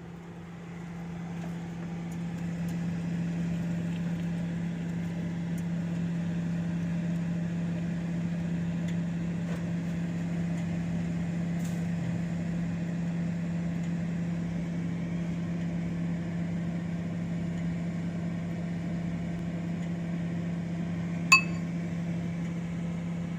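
Microwave oven running, heating a bowl of water: a steady low hum that builds over the first couple of seconds, with one short, sharp sound near the end.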